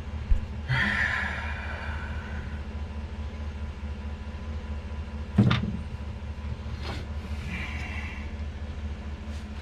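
A vehicle engine idling with a steady low rumble. There are sharp knocks twice, soon after the start and about five and a half seconds in, and brief rustling and handling noises as wiring is worked on.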